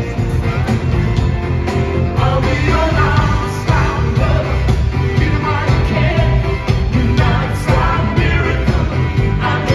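A live pop band playing with singing: drums, bass, electric guitars and keyboards under a sung vocal line, loud and steady throughout.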